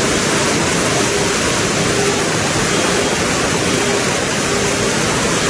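Steady rush of floodwater, a dense even noise without a break.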